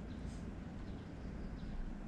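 Quiet outdoor background: a steady low rumble with a few faint, short high chirps and a brief faint high blip about a third of a second in.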